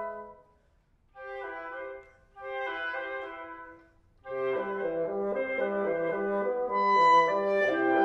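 Woodwind quintet of flute, oboe, clarinet, horn and bassoon playing: a held chord dies away, and after a brief pause two short phrases come in a few upper voices. About four seconds in the full ensemble enters with a repeating low figure beneath, growing louder.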